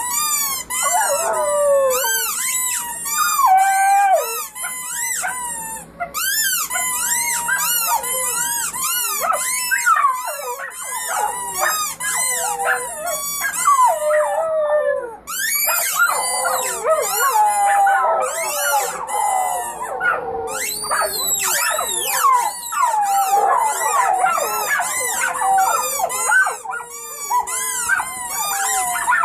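A litter of puppies howling together, several overlapping voices wavering and gliding up and down in pitch, with an occasional yip. A fast, high, repeating warble runs underneath and breaks off twice for a moment.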